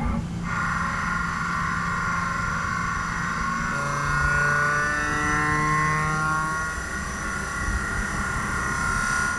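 DN Solutions SMX 3100ST mill-turn turning a cast-iron brake rotor on a finishing pass with a Kennametal CNGA433 KYK10 insert. The machine gives a steady high whine, and lower tones glide slowly in pitch partway through.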